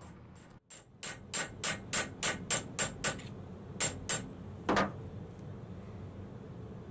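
Hammer peening a tapered steel rivet pin set in a sheet-steel plate on an anvil stake: a quick run of metallic taps, about four a second, then three slower, spaced blows. The blows spread the pin and form a head on the underside to lock the flush rivet in the hole.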